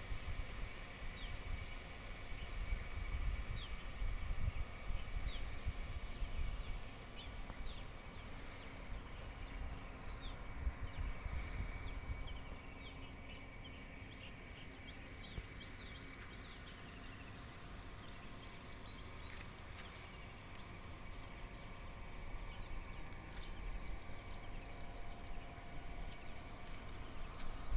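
Many small birds chirping continually in quick short calls, over a gusting low rumble of wind on the microphone.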